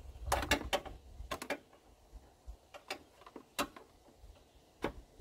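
Sharp plastic clicks and knocks, a quick cluster early on and then single ones, as the cooling fan shroud's locking tabs are pried loose from the radiator.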